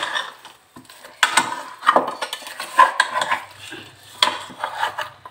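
A steel spoon stirring and turning chicken pieces in thick masala inside a pressure cooker, with irregular clinks and scrapes against the pot's metal walls.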